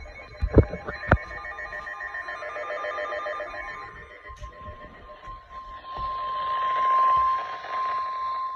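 Emergency Alert System alert tones for a severe thunderstorm warning: two sharp clicks near the start, a rapid pulsing buzz for the first few seconds, then a single steady alert tone that grows louder through the second half.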